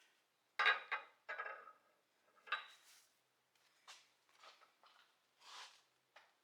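Short knocks and clatters at irregular intervals, about eight in all, the loudest near the start, from hand tools being handled and set down; no machine is running between them.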